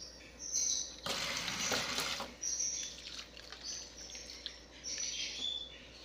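Water poured from a cup onto the soil of a potted plant, splashing for about a second starting about a second in. Small birds chirp repeatedly in the background.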